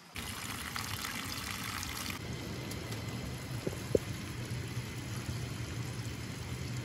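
Stream water flowing steadily over rocks, with one short sharp sound about four seconds in.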